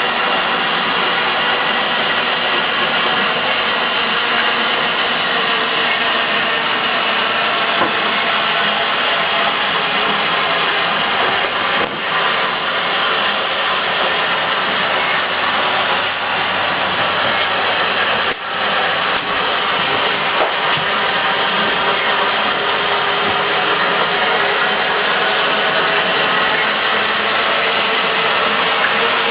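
Kinetic sculpture's drive mechanism running steadily: a continuous mechanical noise of motor and gears with many steady tones, briefly dipping twice, about twelve and eighteen seconds in.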